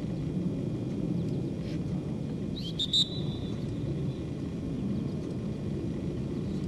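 Steady low outdoor rumble, with a brief high-pitched chirp about three seconds in.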